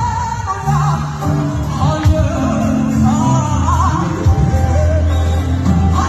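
Live gospel choir of women singing with amplified band accompaniment, the voices wavering over sustained low bass notes.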